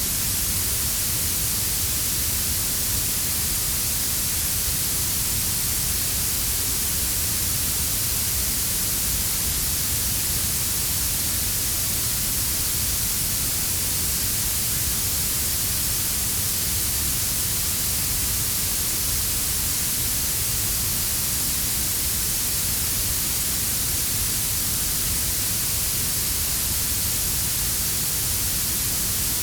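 Synthetic blue noise: a steady, unbroken hiss weighted toward the treble, blended with a quieter brown-noise rumble in the low end.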